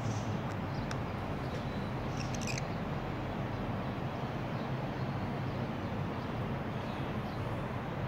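Old, weakened domestic canary held cupped in a hand, giving a few faint short high chirps a little over two seconds in, over a steady low background hum.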